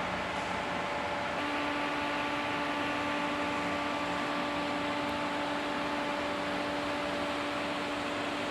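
Steady machine hiss, of the fan or air-conditioning kind, with several steady hum tones; a lower hum sets in about a second and a half in.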